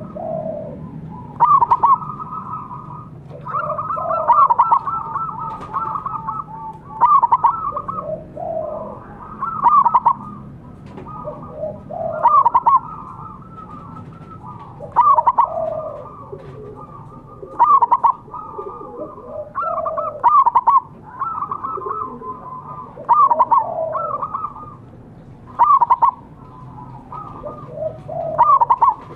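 Zebra dove (perkutut) cooing: its rapid, trilled coo phrase repeated roughly every two and a half seconds, a loud calling song meant to draw rival doves into answering.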